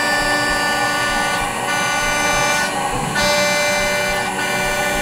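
APSX Spyder desktop CNC mill facing the top of a block with a small end mill: the spindle gives a steady high-pitched whine with cutting noise. The whine dips briefly about every one and a half seconds.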